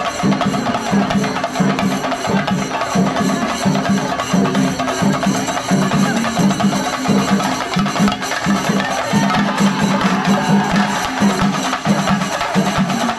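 Shinkari melam ensemble playing: chenda drums beaten fast with sticks in a dense, driving rhythm, with a steady pulse of low drum beats and the shimmer of hand cymbals over it.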